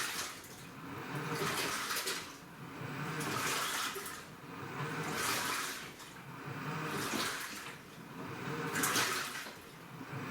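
AQUA washing machine with a direct-drive inverter motor churning its wash water, the water swishing in even surges about every two seconds.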